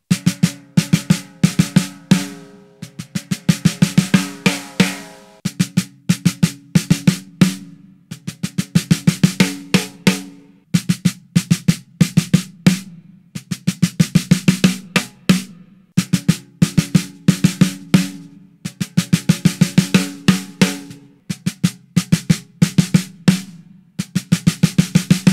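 PDP Concept Series 6.5x14-inch steel snare drum played with sticks in a short pattern of strokes and quick runs, repeated several times, each stroke leaving a ringing tone. It is played open, then damped with two Remo Crown gels, then with two Drumtacs stuck on the batter head, to compare the muffling.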